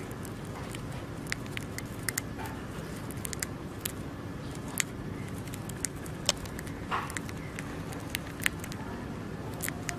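Dwarf hamster nibbling a piece of food: small crisp clicks of chewing at an uneven pace over a steady low hum.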